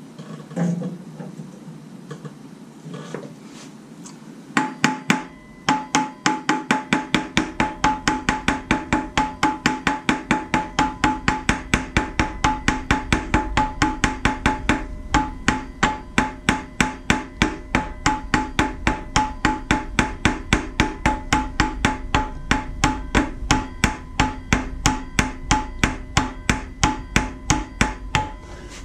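Small sledgehammer striking the hub of a Jeep 4.0 inline-six's harmonic balancer, tapping it onto the crankshaft snout. A few separate knocks come first, then steady blows at about two to three a second, each with a metallic ring, and one short pause midway.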